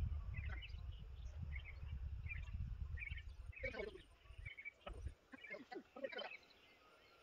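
Wind rumbling on the microphone that eases off about five seconds in, while a small bird chirps again and again.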